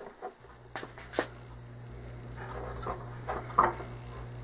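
A few light clicks and taps from handling the tail wheel wire and small parts at a model plane's tail, over a steady low hum that starts about half a second in.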